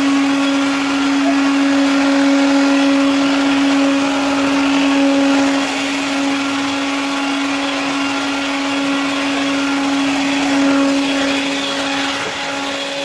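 AEG CX7/CX8 cordless stick vacuum running steadily, a constant motor whine over a rush of suction air, with its new 3D-printed replacement hose fitted and holding tight.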